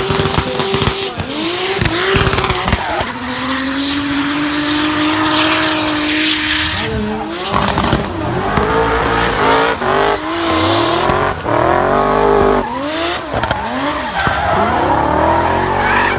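Turbocharged BMW E46 drift car at full throttle, its engine note held steady and then repeatedly revving up and dropping back, with tyres squealing as it slides.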